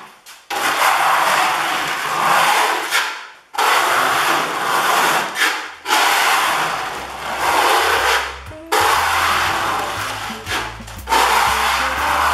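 A 5 mm steel trowel scraping black epoxy resin, filled with marble powder, across an MDF board. It spreads the base coat in about five long strokes of two to three seconds each. Background music comes in about halfway.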